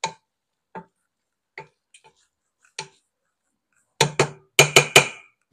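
Wooden spoon knocking against a stainless-steel pot while stirring rice: a few single, spaced taps, then from about four seconds in a quicker run of louder knocks.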